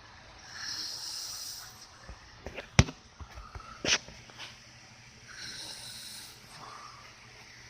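Snoring: two long, hissy breaths about five seconds apart. Between them come two sharp clicks, the first of which is the loudest sound.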